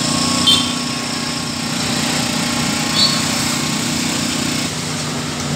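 Matsumoto MGG 2000i inverter generator running steadily while powering lamps, its engine pitch dipping slightly near the end. Two brief high chirps sound over it, about half a second and three seconds in.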